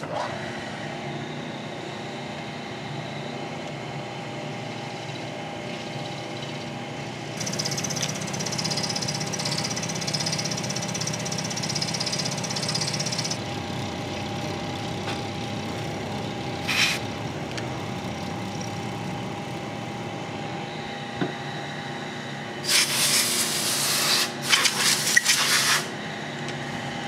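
Vertical milling machine running with a steady spindle hum while an end mill cuts a slot in a bronze crank arm. A harsher cutting hiss joins for about six seconds in the first half, with a brief burst around the middle and several louder bursts of noise near the end.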